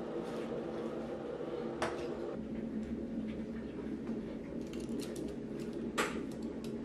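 A steady low hum of several fixed tones, with a few sharp clicks and taps of small objects being handled on a desk, the clearest about two seconds in and again near the end.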